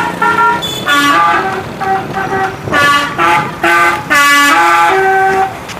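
Telolet musical air horn playing a quick tune of short stepped notes, ending on a longer held note near the end.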